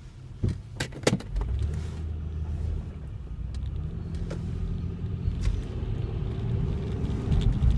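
Cabin sound of a 2005 Honda Pilot's V6 engine and road noise as the SUV drives on, the low rumble growing gradually louder. A few sharp clicks come in the first second or so.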